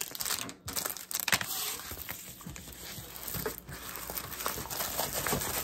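Plastic film and paper rustling and crinkling in irregular bursts with scattered sharp clicks as a rolled diamond-painting canvas is handled and unrolled.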